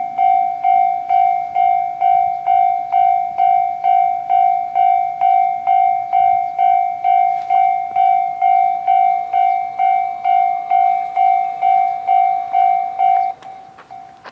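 Japanese level crossing warning bell ringing a steady electronic ding, about twice a second. About a second before the end it suddenly turns much fainter but keeps ringing.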